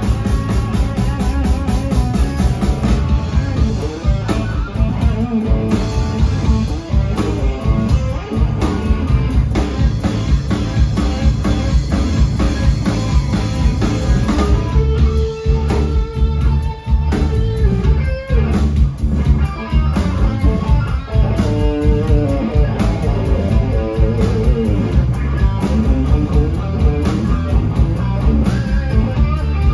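Live rock band playing an instrumental passage: electric guitar over bass guitar and drum kit, with some long held guitar notes about halfway through.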